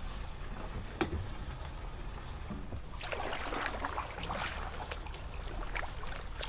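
Kayak paddle dipping into canal water, with splashing and dripping that grow busier midway, and a single sharp knock about a second in.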